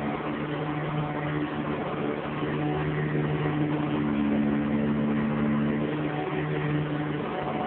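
Eureka upright vacuum cleaner running steadily, a motor hum with a slightly shifting whine over the rush of air, its brush roll set to nap height 4 of 6 for low-pile shag carpet.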